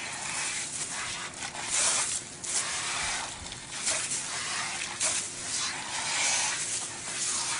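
Water spraying from a hose-fed Aqua-Comb grooming comb as it is worked through a wet dog's coat: an uneven hiss that swells and fades.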